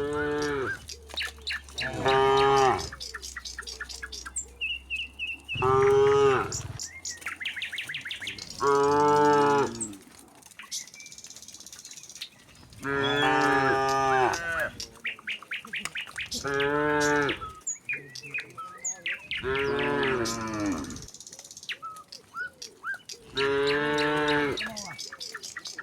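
Cattle mooing in turn, about eight long moos a few seconds apart.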